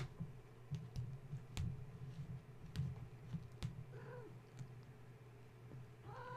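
Kittens playing: scattered light clicks and taps from their movement, over a steady low hum. A short kitten meow comes about four seconds in and another near the end.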